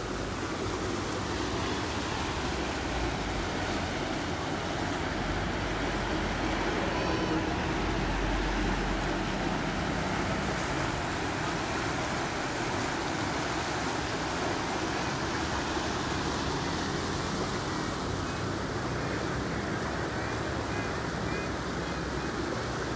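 Rain-swollen river in flood, fast muddy water rushing steadily over the shallows.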